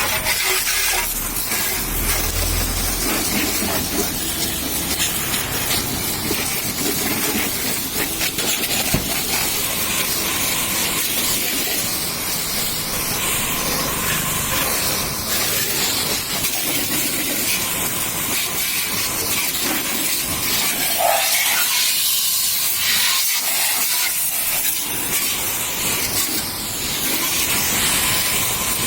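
Water spray jet hissing steadily as it washes down a scooter.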